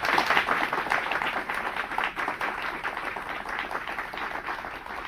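Audience applauding, a dense patter of many hands clapping that slowly dies down toward the end.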